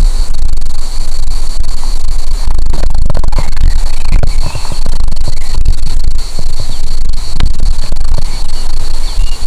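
Wind buffeting the microphone with a heavy, gusting rumble, over a steady high insect trill and a few faint bird chirps, with one sharp click about seven seconds in.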